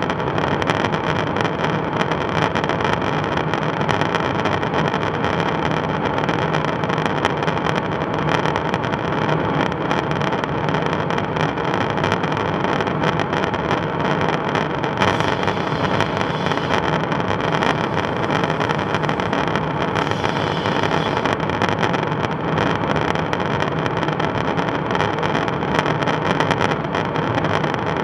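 Steady in-flight noise inside a KC-135 Stratotanker's boom operator pod: rushing airstream and jet engine drone. A higher hiss swells briefly twice in the second half.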